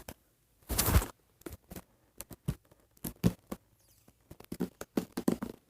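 Plastic wrap being picked at and peeled off a toy box: irregular crinkles and taps, loudest about a second in.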